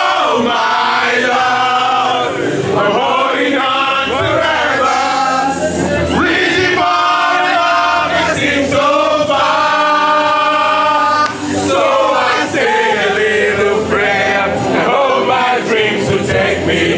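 A group of people singing loudly together in chorus, holding long notes.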